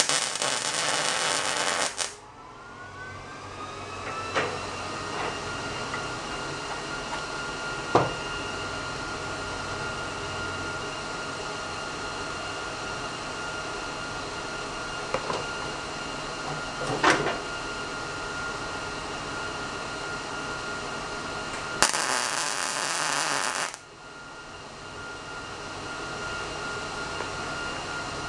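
MIG welder laying two tack welds of about two seconds each, one at the start and one about 22 seconds in, fixing threaded-rod legs to a steel plate. Between the welds a steady machine whine rises in pitch just after the first tack and then holds, with a few sharp knocks.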